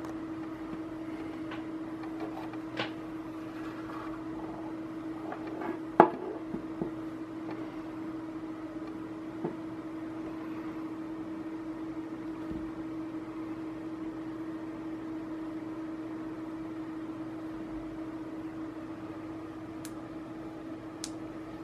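A steady low electric-sounding hum, with a few light clicks and one sharp knock about six seconds in from the plastic bicycle tail light being handled and picked up off a wooden table.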